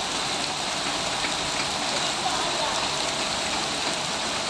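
Torrential rain pouring onto a flooded street: a steady, even hiss.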